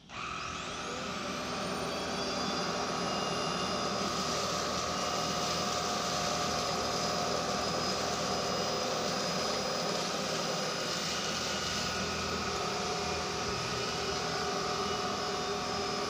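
Roidmi cordless stick vacuum switched on, its motor whine rising over the first second or so and then running steadily. The bristle-and-squeegee brush head is being pushed through a pile of oats and dust powder on bare floor.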